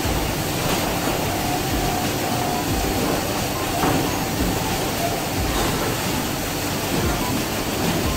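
Steady factory-floor machinery din: a constant rumbling noise with faint short tones and a few low knocks.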